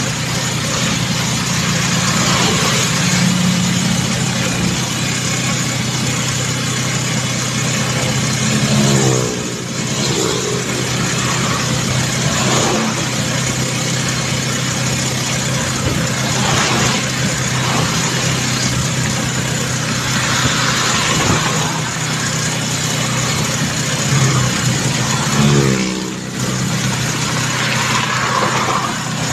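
Engine of the moving vehicle running steadily at road speed, under heavy wind and road noise. Twice, about nine seconds in and near the end, the engine note drops and then climbs again, as at a gear change.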